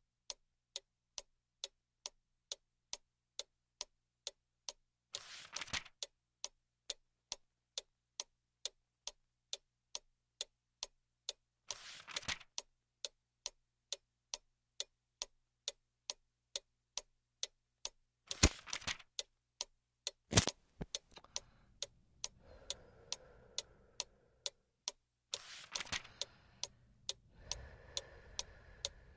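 A clock ticking steadily, a little under two ticks a second. A soft rustle comes twice early on, like a page being turned, and about two-thirds of the way in two loud sharp clicks sound, then softer rustling noise.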